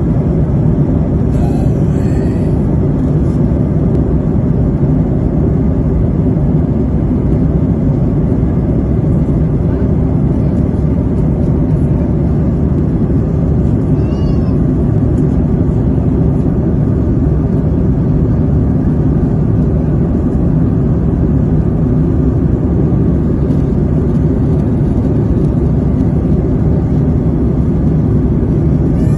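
Steady low cabin noise of an airliner in flight: jet engines and rushing air heard from inside the passenger cabin. A brief faint high chirp comes about halfway through.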